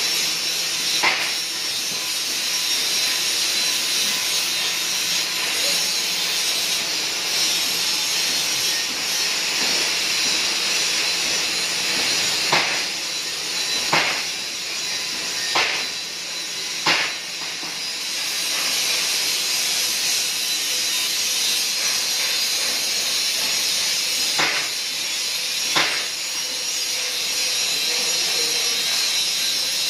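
KorWeld 350 A DC TIG welding arc on 16 mm stainless steel plate: a steady hiss, broken by a handful of sharp ticks, most of them in the middle.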